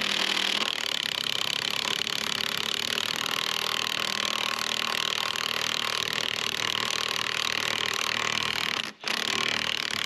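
DeWalt cordless impact wrench hammering steadily as it works a bolt loose in a wooden bridge deck. It stops briefly about nine seconds in, then starts hammering again.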